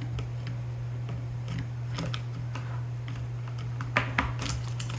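Small clicks and taps of hands working a part loose on an airsoft gun, with a cluster of louder clicks about four seconds in, over a steady low hum.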